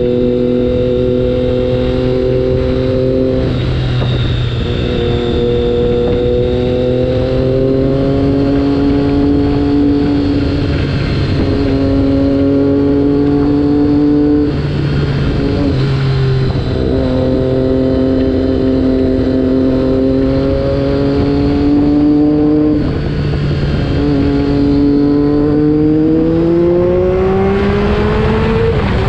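Triumph Daytona 675R's 675 cc inline three-cylinder engine, fitted with a Yoshimura Alpha full exhaust, running under way in traffic. Its pitch holds or climbs gently and breaks off briefly several times as gears change, then rises steadily near the end under acceleration. Wind blast on the camera microphone rumbles underneath.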